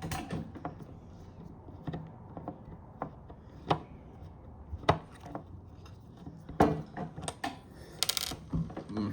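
Irregular clicks and knocks from hands and tools working on a trunk lock actuator assembly, with a quick run of clicks about eight seconds in.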